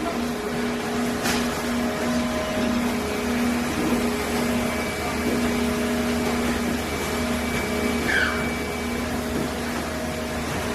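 Automatic box-packaging machinery running: a steady mechanical hum with steady tones that cut in and out, a sharp click about a second in and a short squeak near the end.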